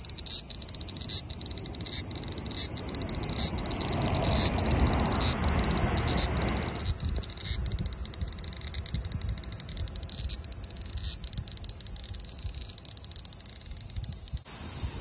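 Dense, high-pitched insect chorus, steady with brief surges about once a second, typical of cicadas shrilling in summer. A low rumble comes in about four seconds in and fades a few seconds later.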